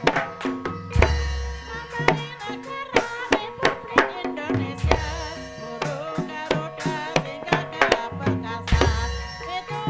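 Banyumasan gamelan music for an ebeg dance: quick hand-drum strokes over sustained pitched percussion tones, a wavering melody line above, and deep low strokes now and then.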